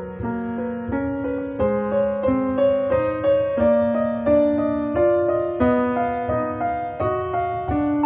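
Background piano music: a gentle melody moving in steady steps, a new note about every half second, over a soft low accompaniment.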